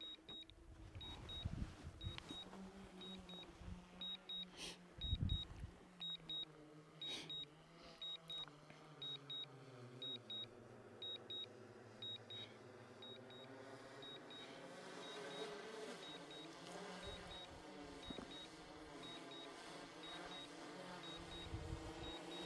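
Drone remote controller beeping in short double beeps about once a second, over the faint hum of a DJI Mavic 3 Pro's propellers hovering, their pitch drifting slowly. A few low thumps in the first six seconds.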